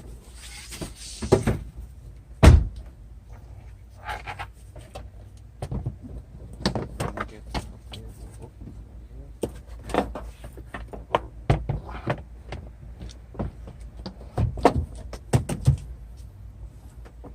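Plastic door trim panel of a Hyundai Accent front door being handled and fitted against the door: a scattered series of clicks and knocks, the loudest about two and a half seconds in, with a brief scraping rustle near the start.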